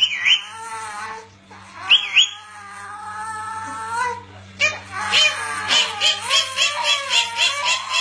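A baby fussing and whining in wavering cries, mixed with short, sharp squawks from an Indian ringneck parakeet. From about five seconds in, the sounds come in a quick run of about three a second.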